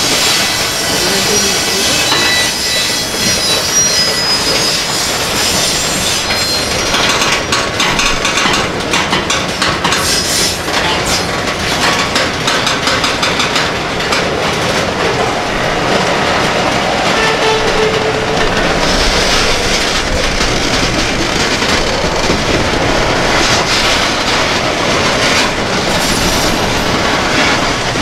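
Covered hopper cars of a freight train rolling past close by: a steady rumble and clatter of steel wheels on the rails, with brief high wheel squeals in the first few seconds.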